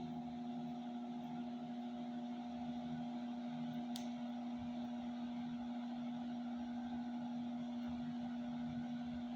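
Ventisol VOM 50 Steel 50 cm desk fan running: a steady electric-motor hum under an even rush of air. A brief faint tick about four seconds in.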